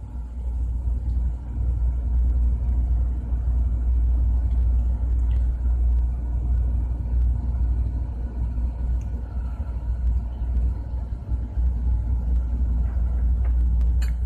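Steady low rumble of running machinery, with a faint steady hum above it: ship's engine-room background noise.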